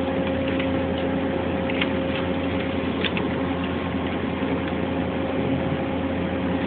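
Steady hum of running shop machinery, with a constant tone and a few faint clicks.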